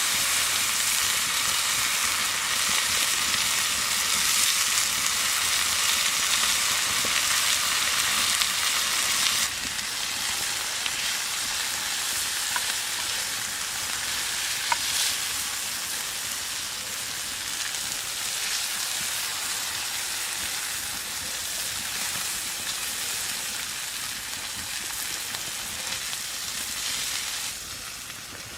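Meat medallion frying with a steady sizzle. The sizzle drops in level once about nine seconds in and again near the end.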